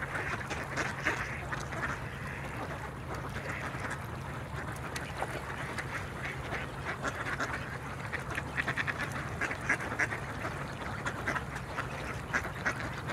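A flock of mallards quacking, many short calls overlapping in quick runs, busiest in the second half, over a steady low hum.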